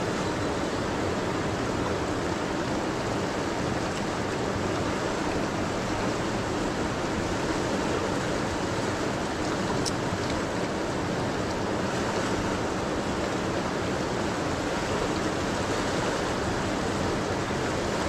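The Seti River rushing steadily, an even wash of water noise.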